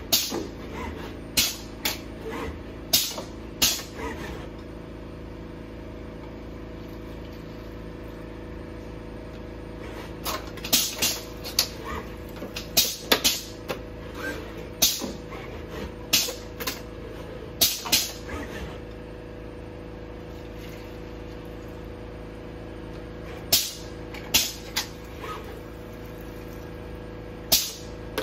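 Robot arm at work: a steady motor hum with several fixed tones, broken by clusters of sharp clicks and knocks as its gripper picks up and sets down cups and lids.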